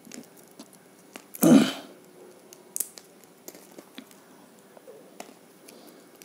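Dried shikakai pods being cracked and picked apart by hand over paper to get the seeds out: scattered small dry clicks and crackles, with one louder, brief noise about a second and a half in.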